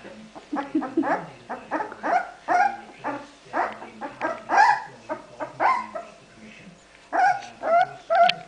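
Four-week-old corgi puppies yipping and whining as they play: a quick run of short, high-pitched calls, many rising in pitch. After a brief lull, three louder yips come near the end.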